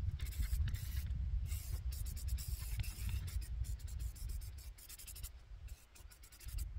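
Aerosol spray paint can hissing in several short bursts, stopping about five seconds in, over a steady low rumble.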